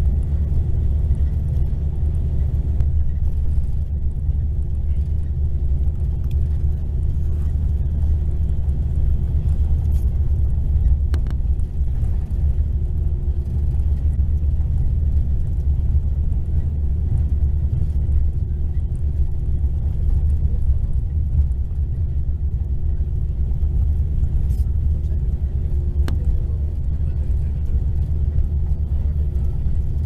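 Mercedes-Benz coach engine running steadily at cruising speed, a low rumble heard from inside the passenger cabin, with road noise.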